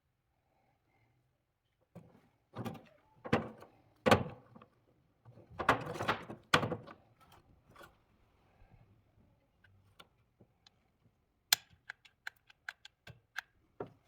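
Handling noises of hard objects being worked by hand: a run of knocks, scrapes and rustles, loudest between about two and seven seconds in, then scattered sharp clicks.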